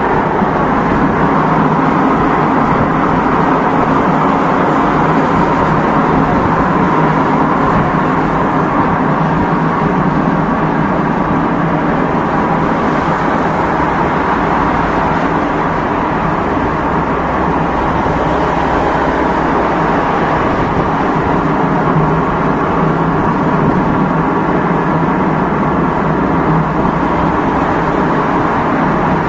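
Lamborghini supercar running steadily at an even level, with no revs rising or falling.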